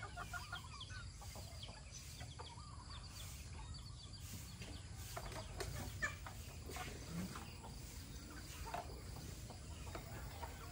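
Chickens clucking faintly, with a few scattered clicks or knocks and a low steady background rumble.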